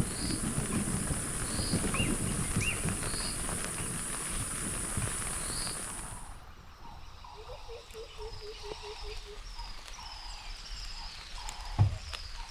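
Wet bush ambience at dusk: a steady high insect drone with a short chirp about every second, over rain pattering. About halfway through it cuts to a quieter chorus of insect chirps, with a quick run of about eight low notes and a single knock near the end.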